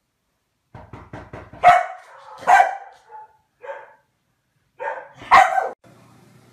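Dog barking: a quick run of short huffs, then a series of barks spaced about a second apart, the loudest a little after the start and near the end.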